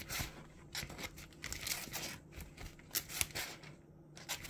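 Faint, irregular rustling and scraping of a trading-card binder's plastic pocket pages being handled and turned.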